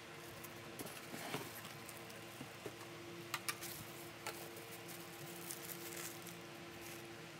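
Clear plastic wrap rustling and crinkling as a stainless steel oil strainer pot and its lid are handled, with a few sharp light clicks a little past three seconds in and again around four seconds as the metal lid is set on the pot. A faint steady hum lies underneath.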